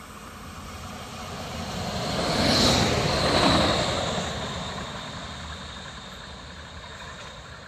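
DB class 650 Regio-Shuttle diesel railcar passing close by. The engine and wheels on the rail grow louder, peak about three seconds in and fade as it moves away. A high whine drops slightly in pitch as it goes past.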